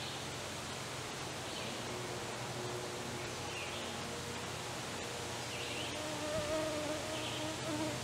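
A flying insect buzzing near the microphone, its wavering whine growing louder from about six seconds in. A bird chirps faintly in the background every second or two over a steady hiss of outdoor air.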